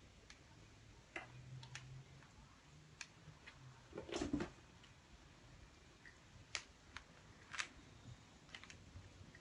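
Scattered light taps and clicks of kittens playing with toys on a wooden floor and mat, with a louder knock and rustle about four seconds in.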